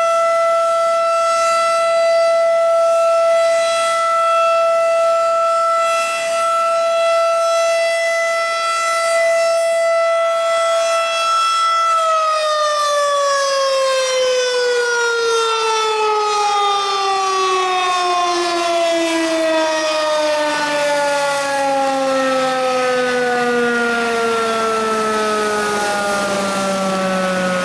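Federal Signal 2001-DC tornado siren sounding a steady alert tone. About twelve seconds in, it shuts off and winds down at the end of its alert cycle, its pitch falling slowly and steadily.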